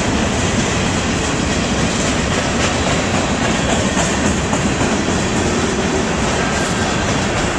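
Freight train's covered hopper cars rolling past: a steady, loud noise of steel wheels on the rails, with faint clicks over the rail joints.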